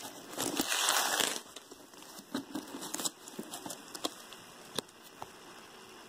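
Leather handbag being handled and turned over. There is one loud rustle about half a second in that lasts about a second, then lighter rustling and a few small clicks.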